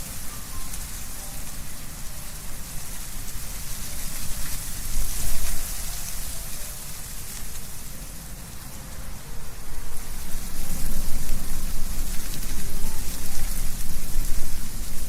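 Wind blowing through trees with leaves rustling, a steady hiss that swells in gusts about five seconds in and again from about ten seconds on.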